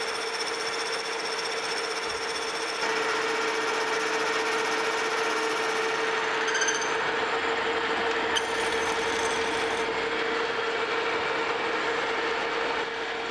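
Metal lathe taking a heavy facing cut on a bronze bushing blank: the steady hum of the running lathe with the hiss of the tool cutting bronze, a little louder from about three seconds in.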